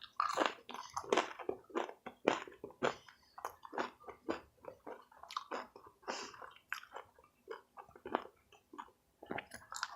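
Close-miked chewing of crispy stuffed nacho bites: a quick, irregular run of short crunches and mouth clicks, several a second.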